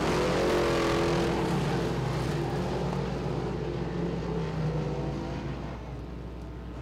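Sportsman dirt modified race cars' engines running at speed on a dirt oval, the sound fading steadily over the last couple of seconds.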